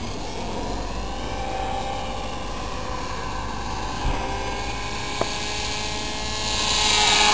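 Distant whine of a small RC foam plane's geared HIMAX 2015-4100 brushless electric motor turning a 9x6 propeller in flight, its pitch sliding slowly and getting louder near the end.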